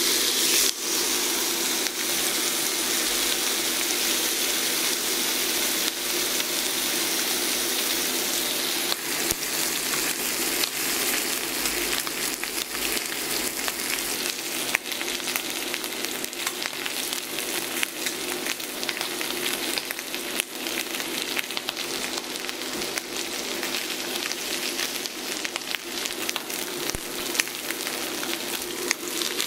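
Dry-aged Aberdeen Angus ribeye steak searing in hot fat in an enamelled cast-iron skillet: a steady sizzle with frequent small crackling pops.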